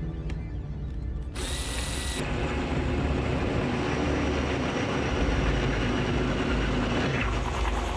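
Power drill boring into a wall, running with a rattling mechanical noise that grows fuller about two seconds in and then holds steady.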